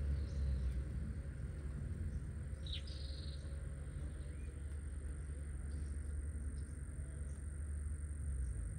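Outdoor rural ambience: a steady low rumble, a continuous thin high-pitched insect drone, and a short bird chirp about three seconds in.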